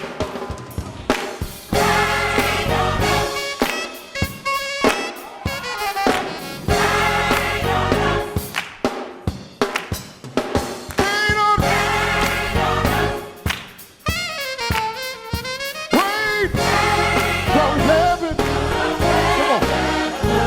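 Gospel choir singing with band accompaniment. About three quarters of the way through, a single voice holds notes with wide vibrato.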